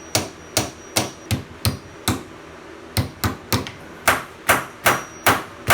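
A hammer strikes a steel punch about fourteen times, two to three blows a second with a short pause about two seconds in, and some blows ring metallically. The punch is driving a worn factory door hinge pin bushing out of a Jeep Wrangler TJ door hinge.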